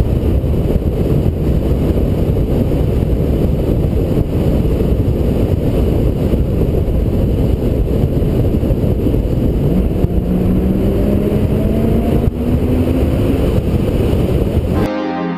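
Wind rushing over the microphone and road noise from a 2016 Porsche Boxster Spyder driving on a mountain road, recorded by a camera on the car's nose. About two-thirds of the way through, its flat-six engine note climbs steadily as the car accelerates. Near the end the sound cuts abruptly to music.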